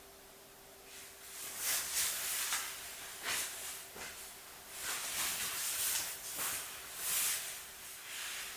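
A series of soft rustling swishes, about six or seven, starting about a second in, over a faint steady hum.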